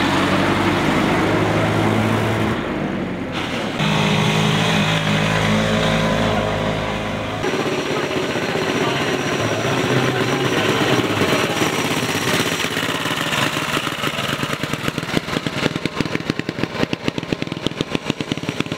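Pre-war vintage vehicle engines running at low speed as they pass one after another. Near the end an old motorcycle pulls away, its engine firing in loud, distinct beats that quicken.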